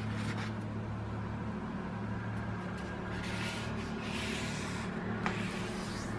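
A sheet of origami paper rustling and sliding on the table as it is folded into a triangle and creased, in two brushing stretches a little past the middle and a short tick near the end. A steady low hum runs underneath.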